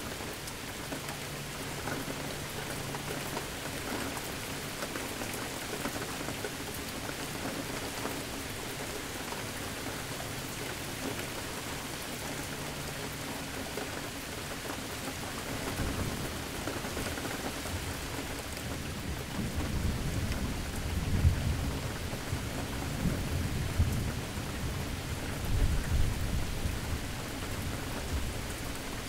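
Steady rain falling throughout. Thunder starts rumbling about halfway through and builds into several low rolls, loudest in the last third.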